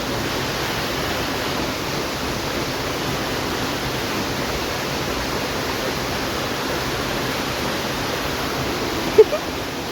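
Waterfall: falling water making a steady, even rush close by. A brief short sound stands out once, just before the end.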